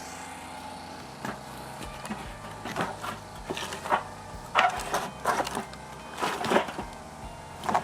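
Firewood being worked by hand: about a dozen irregular, sharp knocks and cracks of wood on wood, starting about a second in and bunching in the middle.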